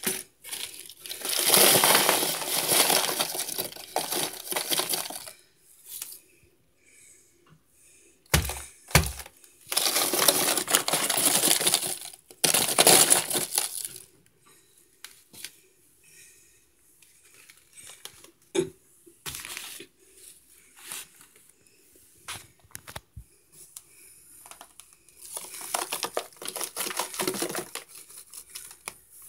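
Plastic packaging crinkling and rustling as it is handled and opened, in several long spells with short clicks and taps between them.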